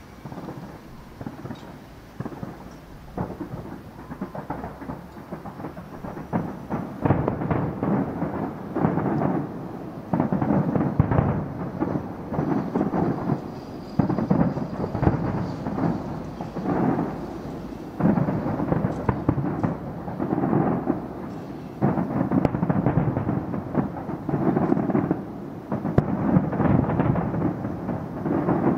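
Fireworks display: aerial shells bursting in quick succession, the booms running together into a continuous thunder-like barrage. It gets louder from about seven seconds in.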